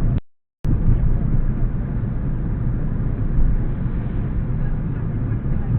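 Steady road and engine rumble inside a moving car, as picked up by a dashcam's built-in microphone. The sound cuts out to total silence for about half a second just after the start, then resumes.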